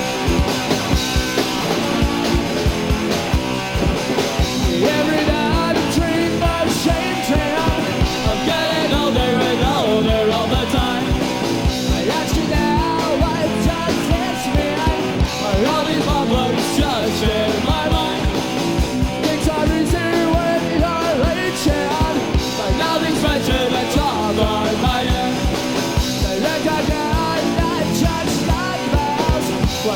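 Punk rock band playing live: distorted electric guitar, bass and drums driving a fast, even beat.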